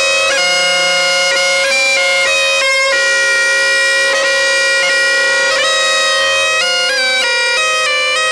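Bagpipe playing a melody over a steady, unbroken drone, with quick ornamental grace notes between some of the melody notes.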